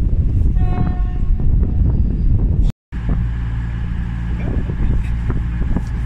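A short single train horn toot, about half a second long, about a second in over wind rumble; then, after a cut, a Voyager diesel unit standing at the platform with its engines idling, a steady low hum with a steady high whine.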